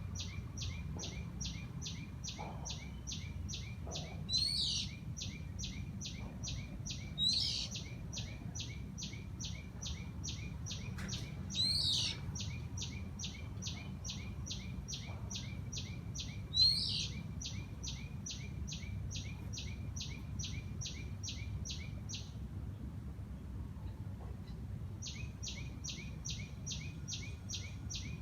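A sharp bird call rings out four times, a few seconds apart, over a fast, even, high-pitched pulsing of about three beats a second. The pulsing stops for about three seconds near the end, then resumes, with a low steady rumble underneath throughout.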